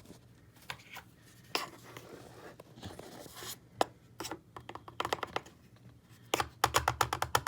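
Handling sounds while cornstarch and a tablespoon are readied: a few scattered clicks, a stretch of rustling and scraping, then two bursts of quick clicking and rattling in the second half.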